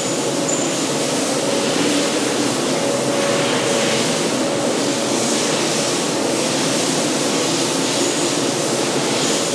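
Steady mechanical roar of factory machinery and air handling, with a faint steady hum underneath.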